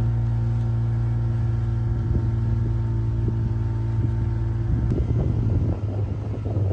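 Motorboat engine running at a steady pitch. About five seconds in, a rough, gusty rushing takes over and the engine note drops slightly.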